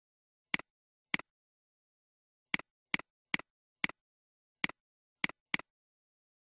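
Computer mouse button clicks, nine in all, irregularly spaced; each is a sharp click followed closely by a softer release click.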